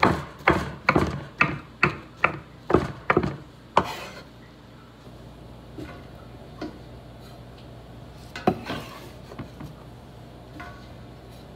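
Chef's knife chopping mushrooms and vegetables on a wooden cutting board: about ten sharp chops, two to three a second, over the first four seconds. Then softer scraping and a few light knocks on the board and pot.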